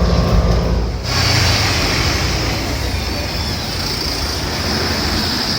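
Alexander Dennis Enviro500 double-decker bus heard on board: a low diesel engine drone gives way about a second in to a steady hiss and running noise.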